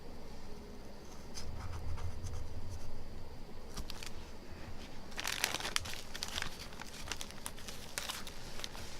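Plastic knife scraping and peeling softened original glue off an iPhone 6 Plus screen: a run of small scratches and crackles, with a denser burst of scraping about five seconds in.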